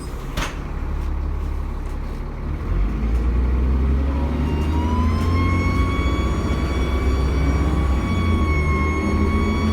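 Dennis Trident double-decker bus pulling away, its diesel engine running low, heard from inside the bus. About four seconds in, a high turbocharger whine rises and then holds steady. There is a brief click about half a second in.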